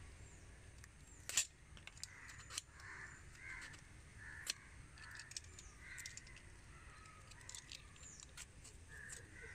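Faint crows cawing several times, with thin high chirps of small birds and a few sharp clicks, the loudest about a second and a half in.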